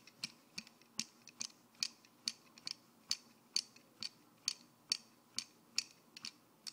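Regular sharp ticking, a little over two clicks a second, steady in pace.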